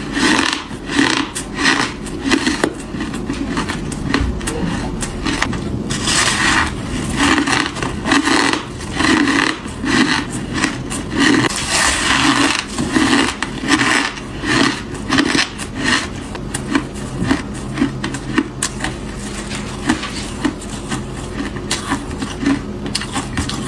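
Close-up crunching and chewing of packed freezer frost: sharp crunches as it is bitten, then rhythmic chewing at roughly two crunches a second, growing softer near the end.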